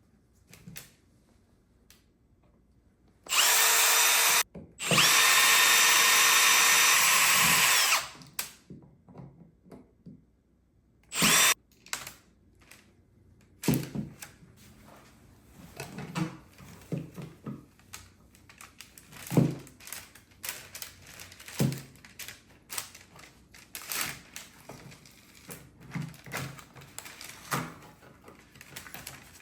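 A power drill runs in three bursts with a steady whine: a short one, a longer one of about three seconds, then a brief one. Scattered clicks and knocks follow.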